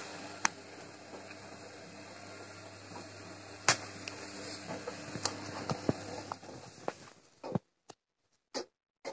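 Gorenje WA 50050 front-loading washing machine in its wash cycle: steady motor hum as the drum turns the laundry, with scattered clicks and knocks. About two-thirds of the way through the hum stops suddenly as the drum comes to a rest, and a few brief soft sounds follow.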